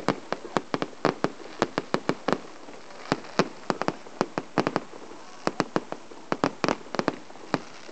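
Fireworks display: aerial shells bursting in a rapid, uneven string of sharp bangs, several a second.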